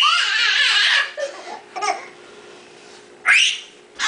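Baby laughing in high-pitched squeals: one long burst at the start, a couple of short ones after it, and another sharp squeal near the end.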